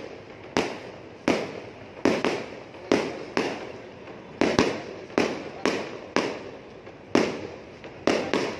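Aerial fireworks bursting in a rapid, steady series, roughly two sharp bangs a second, each fading quickly before the next.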